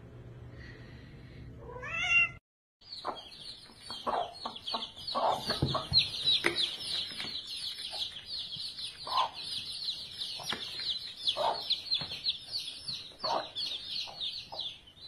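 A cat meows once about two seconds in. Then a brood of chicks peeps without pause in high, quick, downward-sliding chirps, with a hen clucking now and then underneath.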